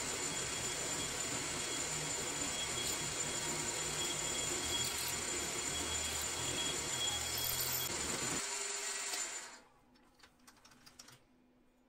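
A power tool runs steadily with a faint high whine, then switches off about nine seconds in, followed by a few light clicks.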